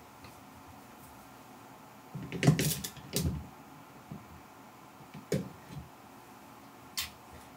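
A few short knocks and rustles in a quiet room: a cluster about two to three and a half seconds in, then single ones around five seconds and seven seconds.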